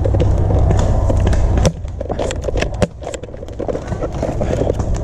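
Low rumbling noise that drops away just under two seconds in, followed by a quick run of sharp clicks and knocks for about a second.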